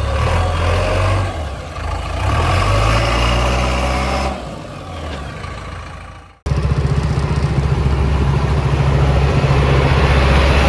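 Heavy diesel engine of a backhoe or dumper truck running under changing load, falling away about six seconds in. Then an abrupt jump to a diesel engine running loud and steady.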